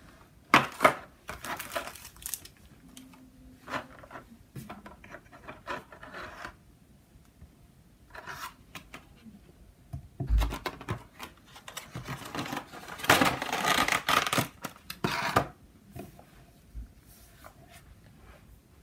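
Clear plastic wrapping and a plastic tray from a diecast model airliner's box being handled: crinkling and rustling that comes and goes, heaviest in a long stretch about two thirds of the way in. About ten seconds in there is a dull thump.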